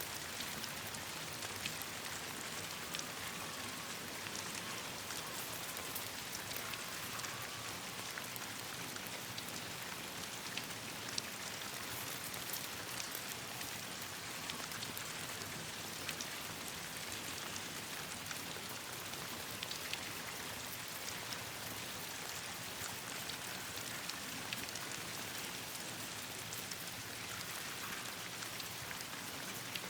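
Steady rain falling, an even hiss scattered throughout with many small, sharp ticks and pops of drops landing.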